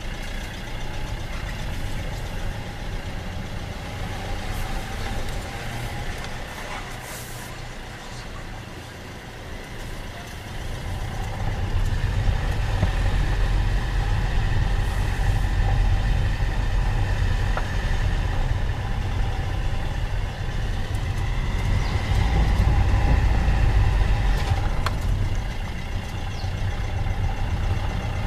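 A car's engine and tyres heard from inside the cabin while driving slowly, a steady low rumble that grows louder about ten seconds in, with a few faint clicks.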